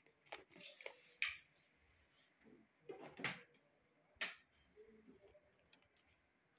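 A few short, light knocks and clicks in a quiet room: one about a second in, a stronger one around three seconds and another just after four seconds.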